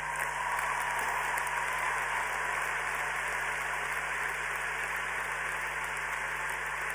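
Large audience applauding steadily, the dense clatter of many hands.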